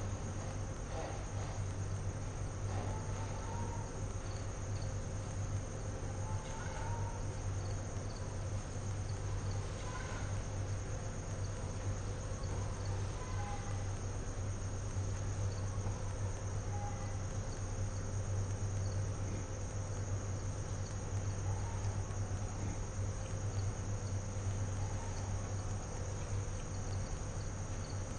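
Steady electrical hum and hiss from a live webcam's audio feed, with faint short chirps scattered through it.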